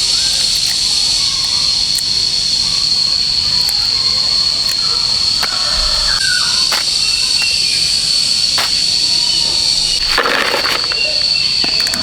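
Insects, crickets or cicadas, droning steadily on one high pitch, with a few scattered clicks and a brief rush of noise about ten seconds in.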